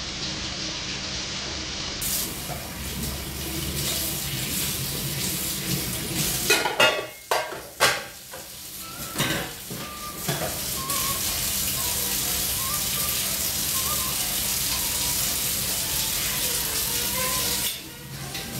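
Tap water running into a stainless-steel sink as dishes are washed, a steady hiss, with a burst of clattering dishes and cutlery about a third of the way in.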